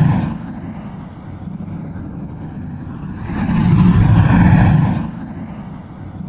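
Whoosh-and-rumble sound effects for a logo animation. A low noisy rumble runs under a first swell that fades in the first moment, and a second, louder swell rises and falls about three and a half to five seconds in.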